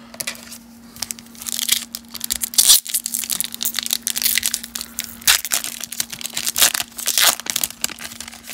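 Trading card pack wrapper being torn open and crinkled by hand, in irregular crackling bursts, over a faint steady hum.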